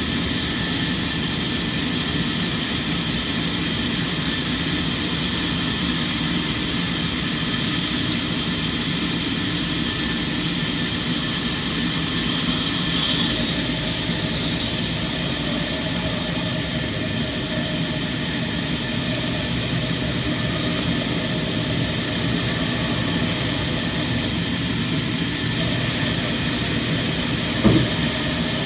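Sawmill machinery running with a steady, even drone, and a brief louder sound near the end.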